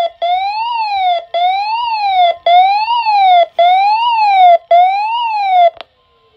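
NOAA weather radio receiver's alarm siren set off by the weekly test of the warning alarm tone. A loud electronic wail rises and falls about once a second with short breaks, six times, then cuts off near the end.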